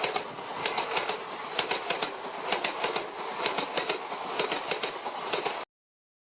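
Train passing, its wheels clattering over rail joints in irregular clicks over a steady rushing noise. The sound cuts off abruptly near the end.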